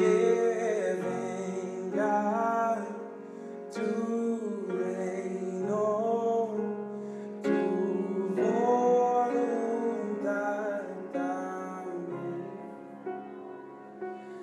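A worship song: a solo voice sings long, wavering phrases with vibrato over sustained keyboard chords.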